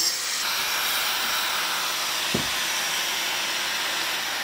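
Angle grinder cutting through the copper windings of a fridge compressor motor, a steady, loud hissing grind, with one short knock about two and a half seconds in.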